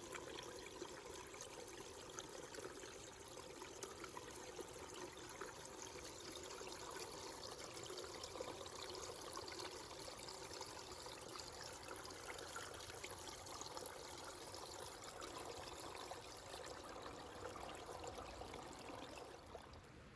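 Faint, steady trickle of a small stream or brook running over rocks; it cuts off suddenly at the end.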